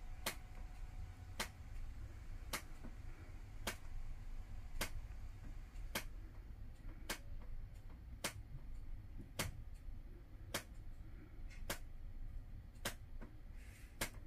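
Sharp, evenly spaced ticks, a little slower than one a second, like a clock ticking, over a steady low hum.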